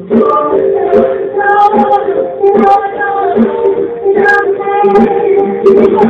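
Female vocal trio singing a Motown pop song live over a backing band with a steady beat.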